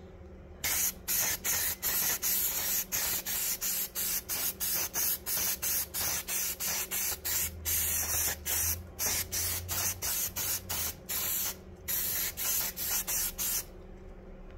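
Aerosol air-filter oil sprayed onto a cotton-gauze panel air filter in many short hissing bursts, about three a second, with a few brief pauses; this is the oiling step after the filter has been cleaned and dried.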